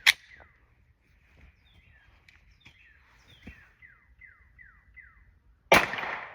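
Jennings 9mm pistol test-fired: one sharp shot right at the start and another about five and a half seconds in, with a trailing echo. Birds chirp faintly in the quiet between the shots.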